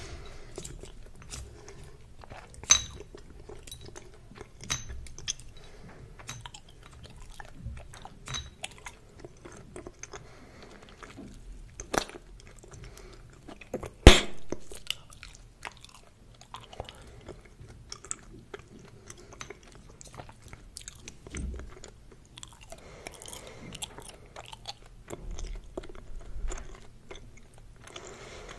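Close-miked chewing of Hubba Bubba bubble gum: irregular wet clicks and smacks of the mouth working the gum, with one much louder sharp click about halfway through.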